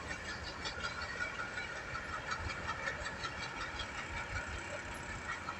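Freight train at a distance, a faint low rumble with rapid, irregular light clicks.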